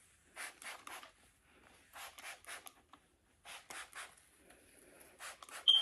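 Spray bottle of hair oil water misting the scalp in four quick groups of short hissing sprays, evenly spaced. A short, sharp high ping sounds near the end.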